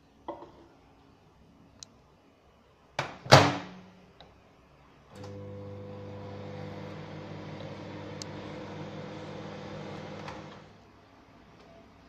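Microwave oven door shut with a loud double bang about three seconds in; a couple of seconds later the microwave, started by its mechanical dial timer, runs with a steady hum for about five seconds and stops with a click.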